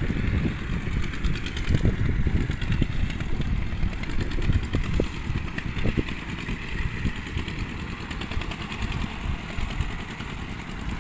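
Two-wheel walking tractor's engine running while the tractor works a flooded rice paddy, a continuous uneven low rumble that eases off slightly toward the end.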